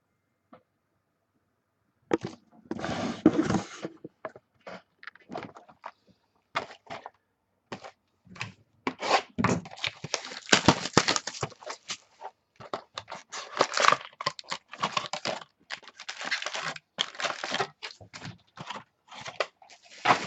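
Packaging of a sealed box of baseball cards being torn and crinkled open, with irregular crackling, tearing and handling noises that start about two seconds in.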